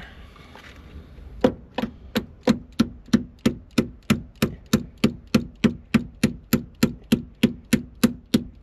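A steady, even run of sharp mechanical clicks, about three a second, starting about a second and a half in.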